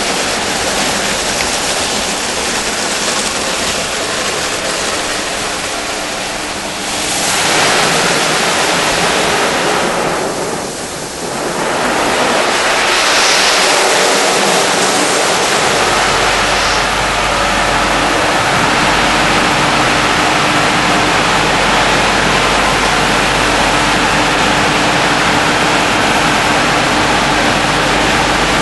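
Automatic rollover car wash in operation: water spraying and rotating brushes washing a car, a steady rushing with swells about a third and half of the way through. From just past the middle a low machine hum joins in.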